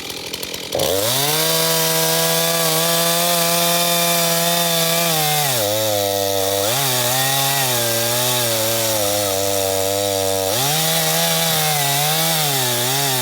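Stihl MS 251 two-stroke chainsaw revved to full throttle about a second in, cutting the felling notch (wedge) into a tree trunk. Its pitch sags twice as the chain bites into the wood and climbs back each time.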